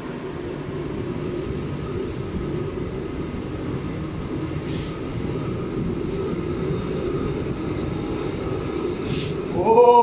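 Zobo ZB-G35T gas heater running, a steady rushing roar of the burning gas with a faint constant whine. Just before the end comes a short pitched sound that bends up and then down.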